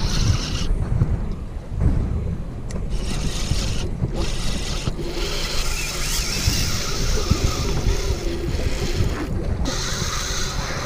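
Wind buffeting the microphone over open sea, with a higher hiss of wind and water that comes and goes several times.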